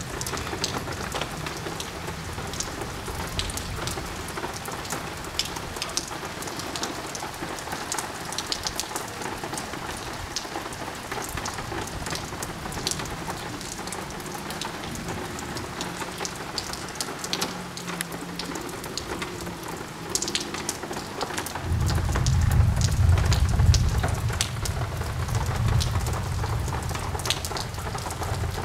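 Heavy rain pouring steadily, with many sharp drop ticks close by. About three-quarters of the way in, a deep rumble of thunder rises suddenly and rolls on for several seconds as the loudest sound.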